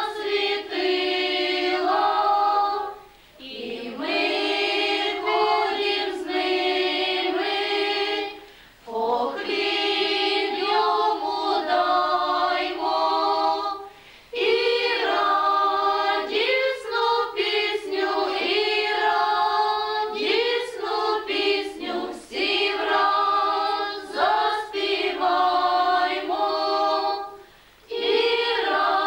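A group of women and girls singing a Ukrainian Christmas carol (koliadka) unaccompanied, in long held phrases with short pauses for breath between them.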